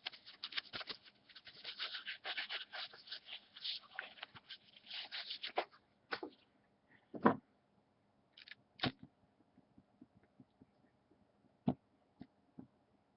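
Hands being wiped dry, a rapid rustling and scratching that stops about six seconds in, followed by a few separate clicks and knocks, the loudest about seven seconds in.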